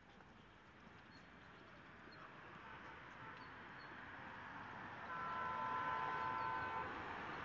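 Road traffic noise growing steadily louder as a vehicle approaches. About five seconds in, a vehicle horn sounds one steady note for nearly two seconds.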